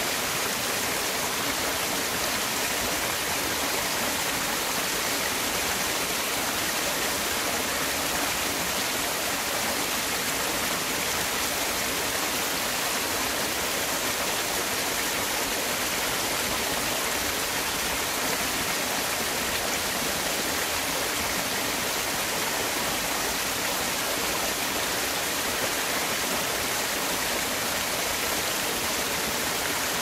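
Mountain valley stream rushing steadily, an even, unbroken hiss of flowing water.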